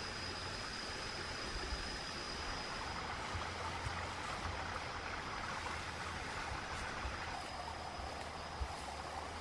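Outdoor ambience: a steady, even hiss with a thin, continuous high-pitched insect drone and a low rumble underneath.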